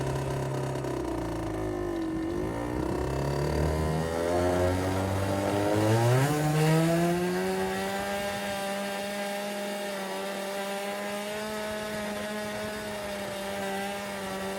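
Derbi Senda 50cc two-stroke engine running through a Technigas Enox expansion exhaust. Its pitch dips about two seconds in, climbs as it revs up around six seconds, then holds steady at a higher pitch.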